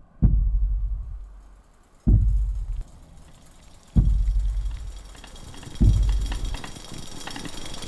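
Soundtrack score of slow, deep bass hits, four of them about two seconds apart, each dying away. A hissing high shimmer builds underneath in the second half.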